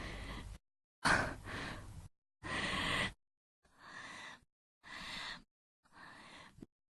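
A woman's breaths and sighs, spliced together as about six short clips of under a second each, with dead silence between them. The loudest one, about a second in, begins with a sharp intake.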